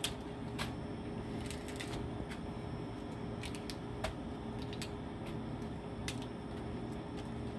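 Hands picking over a cooked Dungeness crab: scattered small clicks and snaps of shell as the gills and innards are cleaned out of the body, over a steady low hum.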